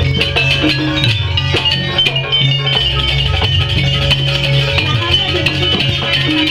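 Live ensemble music accompanying a Banyuwangi barong dance: a heavy, steady bass line under quick melodic notes and frequent sharp percussion hits.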